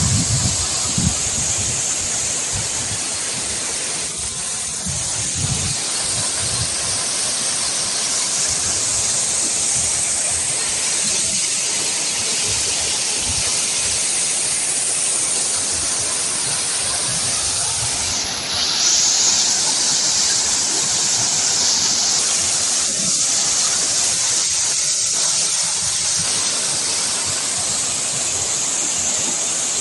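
Steady rushing water, a continuous noise with a slight rise in level about two thirds of the way through.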